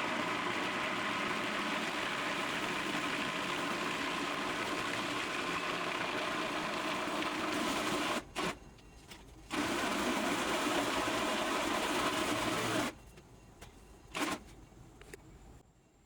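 Electric blender running in stretches: a steady motor whir for about eight seconds, a short blip, another run of about three seconds, then one last brief pulse, as it blends a batch of mayonnaise.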